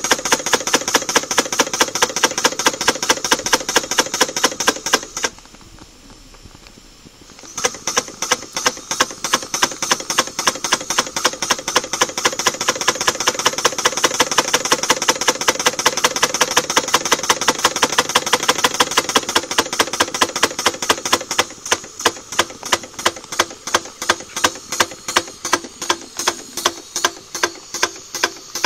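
Rapid, regular mechanical ticking from a model steam boiler's gas and petrol burner setup, several ticks a second. It stops for about two seconds some five seconds in, then resumes, slowing to about two ticks a second near the end.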